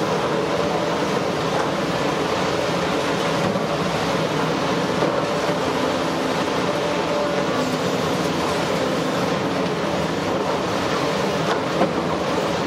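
A demolition excavator runs steadily as its hydraulic crusher jaws bite into and break up concrete, a continuous mechanical din with the crunch and clatter of rubble. There is one sharp knock near the end.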